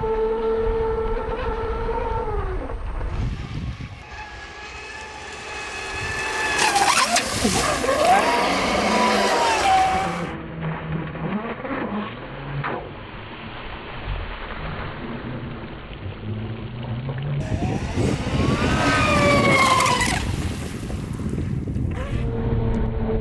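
Traxxas Spartan RC speedboat's brushless motor whining at high speed over the hiss of its spray. It twice grows loud about 7 and 19 seconds in, its pitch falling as the boat goes by.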